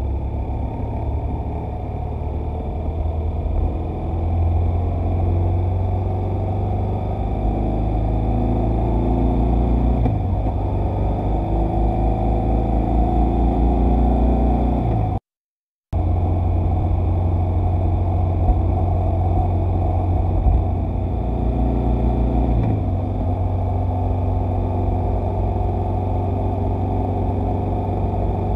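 Motorcycle engine and wind rumble picked up by a dashcam's microphone while riding along, the engine note stepping down abruptly twice, about ten seconds in and again after twenty seconds. The sound cuts out completely for about half a second midway.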